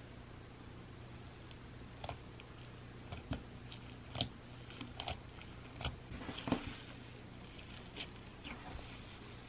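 Fingers poking, squishing and folding fluffy pink cloud slime, giving short irregular squishy clicks and pops that start about two seconds in, over a faint steady hum.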